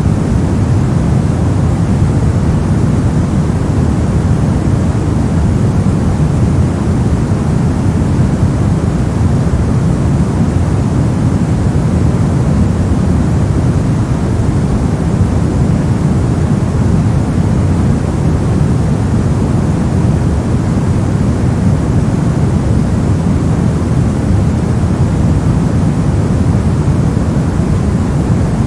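Steady synthetic noise for sleep and study, sold as white noise, that sounds like an even, deep rush with most of its weight in the low end and little hiss on top. It holds unchanged throughout.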